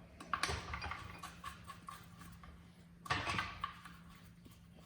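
Scattered metal clicks and taps of a bolt being fitted below the starter where the Volkswagen engine meets the transmission bellhousing, over a faint steady hum. A short, louder rustle comes about three seconds in.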